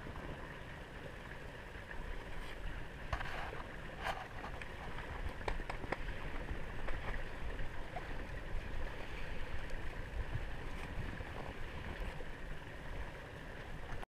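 Mountain stream running under snow and ice, a steady rushing noise with a low rumble beneath it and a few faint clicks about three to six seconds in.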